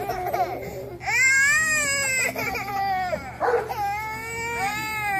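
A baby crying: several long cries, each rising and falling in pitch, the loudest starting about a second in.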